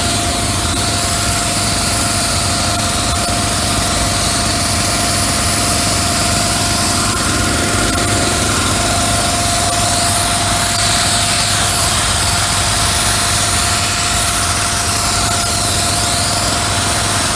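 Engine running steadily at a constant speed, with a steady high whine on top.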